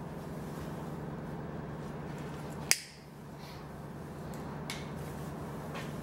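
A sharp snip of hand cutters cutting through a plastic cable tie about three seconds in, followed by a few faint clicks.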